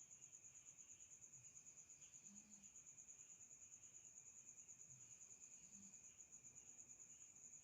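Faint, unbroken high-pitched trill of a cricket, pulsing rapidly and evenly, with a weaker lower buzz beneath it.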